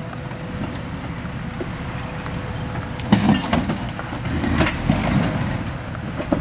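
Jeep Wrangler running at low speed as it crawls over boulders, a steady low rumble. From about three seconds in come louder rough bursts as the tires work over the rocks.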